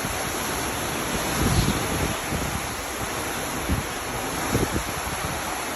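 Hurricane-force wind blowing steadily, with gusts buffeting the microphone a few times.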